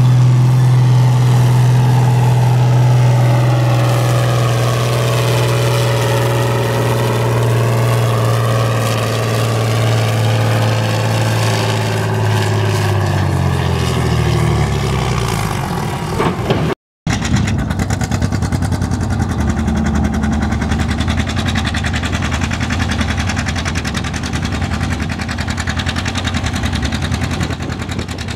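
Farm stock pulling tractor's engine running hard under full load as it drags a weight-transfer sled, then slowing and dropping in pitch over a few seconds as the sled's weight bogs it down to a stop. After a brief break, tractor engines run at a lower, steady speed.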